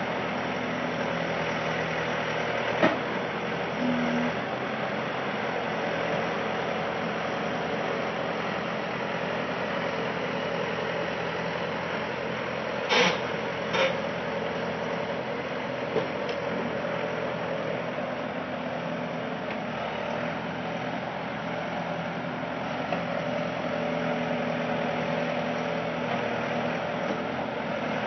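An engine idling steadily, with a few short knocks or clunks, two of them close together near the middle.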